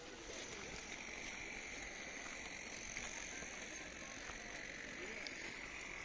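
Faint, steady background noise with a thin high hiss and a few soft ticks. No distinct sound stands out.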